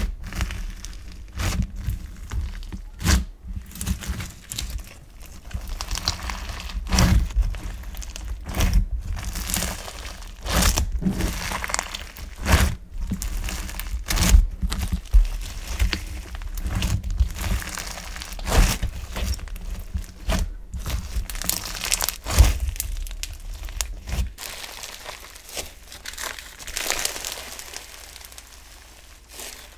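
Foam-bead (floam) slime crunching and crackling as hands squeeze, press and knead it, with irregular sharp crackles and dull thuds. Near the end the thuds stop and lighter crackling goes on as the slime is stretched.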